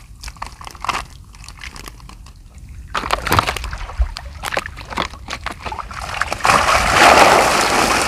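Water sloshing and splashing in a fish corral, with scattered knocks in the first few seconds, swelling into steady, louder splashing about six and a half seconds in.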